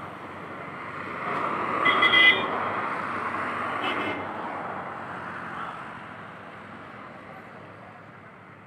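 A motor vehicle passing on the road, its noise swelling and then slowly fading away, with two short horn toots about two seconds apart.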